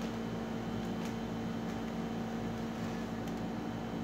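Steady machine hum, an even drone with a few faint clicks.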